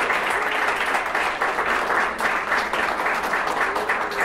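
Audience applauding: many people clapping together, a dense and steady patter.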